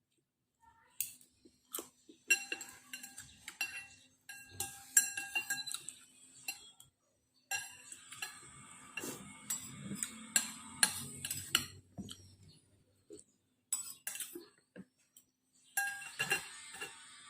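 Cutlery clinking and scraping against a bowl of noodle soup while it is eaten: irregular runs of sharp, ringing clinks with short pauses between them.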